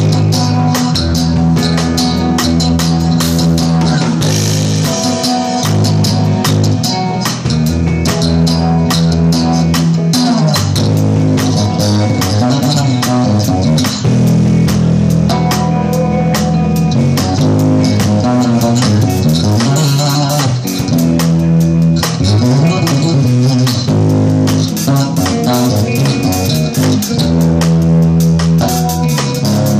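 Electric bass guitar played fingerstyle in a solo, with no slapping: a run of sustained low notes and melodic lines plucked by hand.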